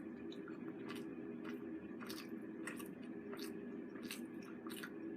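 Close-miked chewing and biting of crunchy food, with a string of short, crisp crackles several times a second over a steady low hum.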